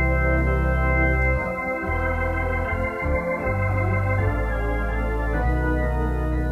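Organ playing held chords over deep bass notes, the chords changing every second or two.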